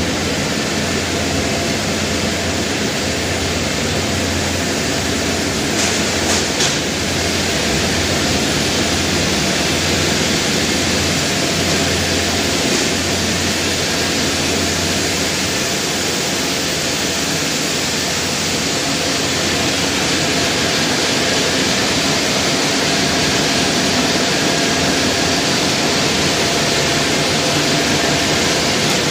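Steady machinery noise of a running wire galvanizing production line: an even hiss over a constant hum, with a few faint clicks about six seconds in.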